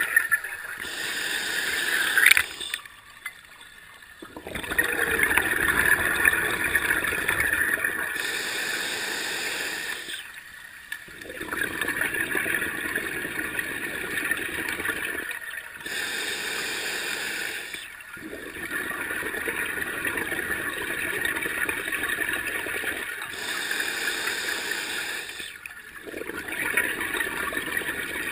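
A scuba diver breathing through an open-circuit regulator underwater. Each breath is a hissing inhale followed by a longer gurgle of exhaled bubbles, with a short pause between breaths; there are about four breaths, roughly every seven seconds.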